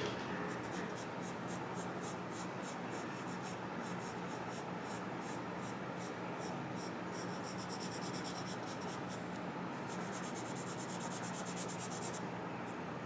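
Charcoal pencil scratching across paper in quick, short back-and-forth shading strokes, the strokes coming faster and denser in the second half and stopping shortly before the end.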